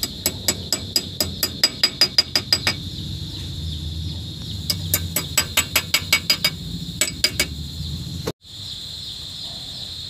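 Quick runs of sharp metallic clicks from a hand tool worked at the engine block, about six a second, in three bursts. Underneath are steady cricket chirring and a low hum.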